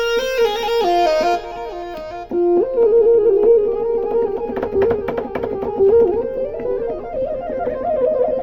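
Roland VR-09 keyboard playing a melody on one of its preset tones: a line of separate stepping notes, turning into a denser, quickly repeated figure from about seven seconds in.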